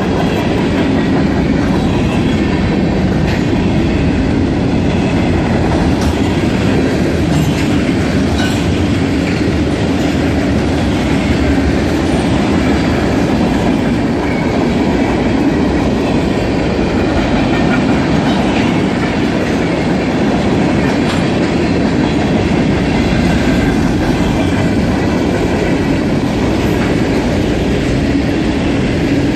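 A train's cars rolling steadily past, wheels running on the rails with a continuous rumble.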